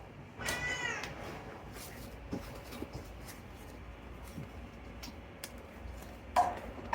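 A house cat meowing twice: a long meow that rises and falls about half a second in, then a shorter, lower call near the end.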